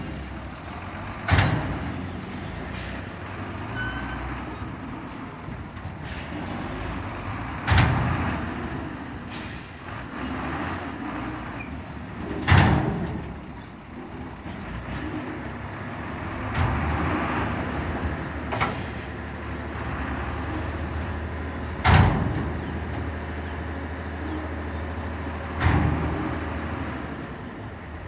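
Two dump trucks tipping their raised loads of earth, engines running steadily, with about five sudden loud noises spaced through it, each dying away within a second.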